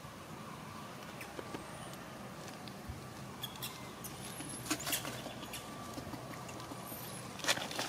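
A few crackles of dry leaf litter and some thin, high, short squeaks over a faint steady background. The loudest crackle comes near the end.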